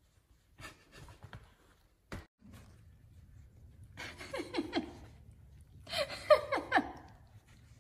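A person giggling in two short runs of quick laughs, about four and six seconds in, after a few light taps and a single knock near the start.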